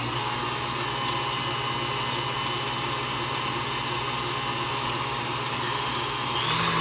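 Electric tilt-head stand mixer running steadily, beating cheesecake batter in its steel bowl. Near the end the motor's whine steps up in pitch and gets a little louder as the speed is turned up.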